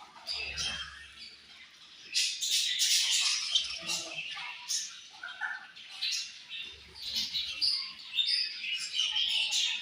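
A colony of budgerigars chirping and warbling together, many short overlapping calls. The chatter is thinner for the first couple of seconds, then fills out.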